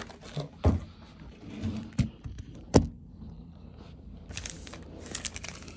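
Handling noise on a wooden desk: three sharp knocks of objects set down, the loudest about halfway through, then a short rustle near the end.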